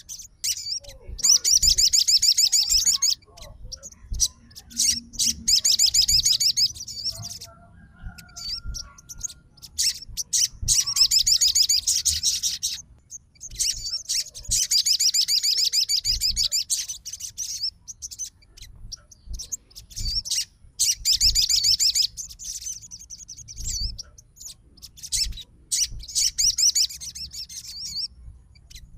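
A sogon songbird singing in repeated bursts of rapid, high-pitched trilled chirping, each lasting one to three seconds, with short single chirps in the gaps between them.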